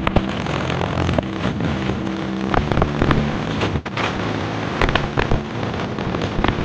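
Music blasting from a parade sound-system rig of stacked loudspeakers, so bass-heavy that it comes through as a harsh, crackling wash of noise with steady bass notes underneath. The music drops out briefly about four seconds in.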